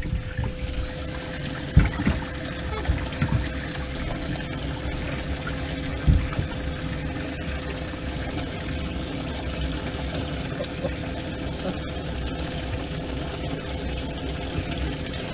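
Bass boat livewell pump running with a steady hum, water trickling and pouring into the well. A couple of dull thumps about two and six seconds in.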